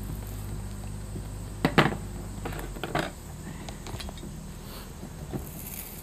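Hand-tool work on a bowling shoe's heel, a small screwdriver prying it loose on a hardboard board. There is one sharp clack about two seconds in, the loudest sound, and a lighter one about a second later, then faint handling ticks.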